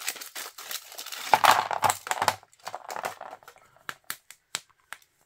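Foil wrapper of a chocolate egg crinkling as it is peeled off and scrunched up, loudest for about a second in the middle, followed by a few sharp clicks near the end.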